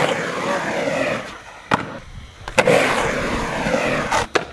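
Skateboard wheels rolling on a concrete bowl in two runs, each beginning with a sharp clack of the board, with more clacks in between and near the end.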